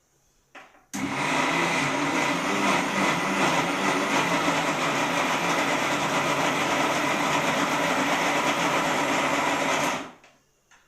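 Electric mixer grinder (mixie) running with a medium jar, blending cake batter of powdered sugar, flour, eggs and ghee. It switches on suddenly about a second in, runs steadily and loudly for about nine seconds, then stops.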